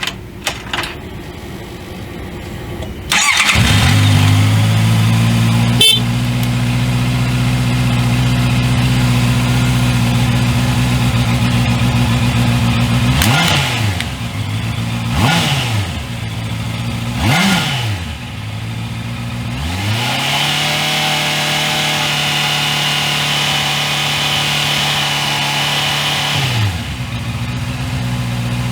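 A 2019 Honda CBR650R's 649 cc inline-four on its stock exhaust, cold-started: it catches about three seconds in and settles into a steady idle. Three quick throttle blips follow, then the revs are held higher for about six seconds before falling back to idle near the end.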